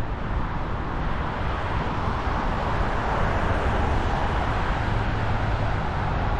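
Steady road traffic noise: a continuous low rumble with a hiss above it, no distinct events standing out.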